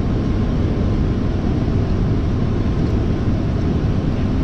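Steady rushing noise on a Boeing 747 flight deck during a landing approach: airflow over the nose and the engines' low drone, heaviest in the bass with no changes.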